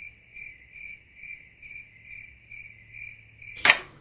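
Cricket chirping sound effect: a high, even chirp pulsing about twice a second, broken off near the end by a short loud sound.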